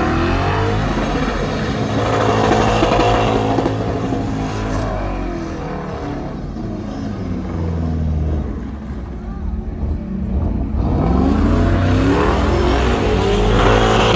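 Truck engines revving, the pitch climbing in long sweeps at the start and again near the end, over a steady low rumble.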